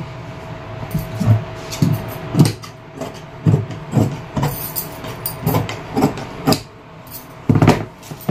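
Large tailor's shears cutting through printed kurti fabric on a cutting table: a run of short snips, about two a second, coming in groups with brief pauses between them.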